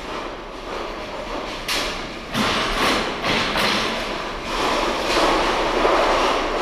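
Metal wheeled mail containers being handled off a Post Office Railway train wagon: a run of knocks and clatters through the first half, then a steadier rolling noise near the end.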